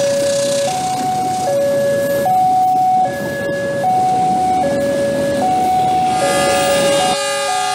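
Railway level-crossing warning alarm: an electronic two-tone signal alternating high and low, each tone held about 0.7 s, over the rumble of a passenger train running past. Near the end the train rumble stops abruptly and several further steady tones join the alarm.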